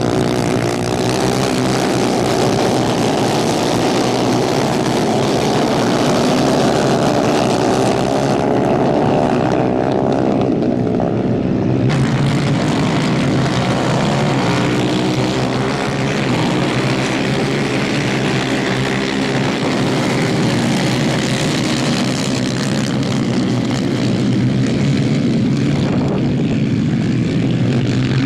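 Several 250 cc kayak-class superkart engines racing together in a pack, their pitches rising and falling as the karts rev up and back off.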